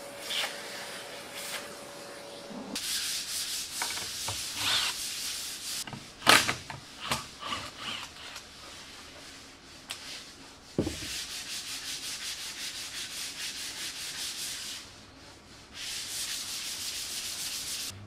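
Chisel and mallet work cleaning out a rectangular pocket cut in plywood: stretches of rough scraping and rubbing strokes, with a cluster of sharp knocks around the middle and one more soon after.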